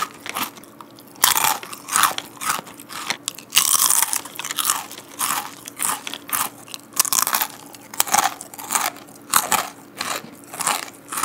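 Close-miked crunching and chewing of a crispy, puffed, drumstick-shaped fried chicken snack, bite after bite with several sharp crunches a second.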